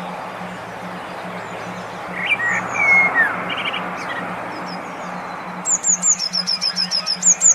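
Songbird calls over a steady hiss and a low pulsing hum: a few whistled notes in the middle, then a fast run of high repeated chirps, about five a second, starting near the end.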